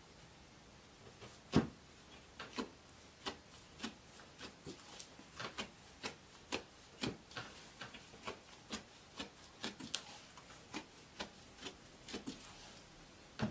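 Slime being squeezed and worked by hand, giving a run of sharp clicks and pops, about two a second, the loudest about one and a half seconds in.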